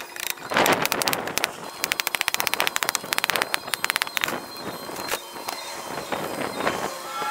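Rapid series of sharp cracks and knocks from hammering and prying apart the wooden boards of a shed, sped up with time-lapse footage.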